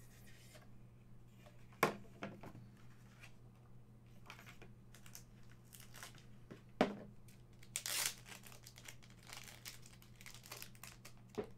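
Cardboard and plastic packaging of vinyl figure boxes being handled and torn open: crinkling and tearing, with two sharp clacks about two and seven seconds in and a short crinkling rush about eight seconds in.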